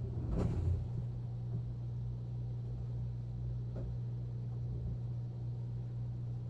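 A steady low mechanical hum, with a brief soft handling knock in the first second.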